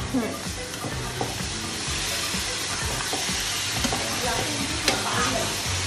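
Paneer cubes, peas and chilli paneer sauce sizzling in hot oil in a metal kadhai while a metal ladle stirs and scrapes through them, with a sharp clink of the ladle against the pan about five seconds in.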